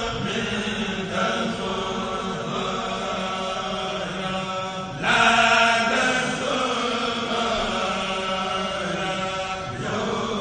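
A Mouride kourel, a group of men, chanting khassida in unison through microphones and loudspeakers: a continuous, sustained multi-voice chant that swells louder about five seconds in.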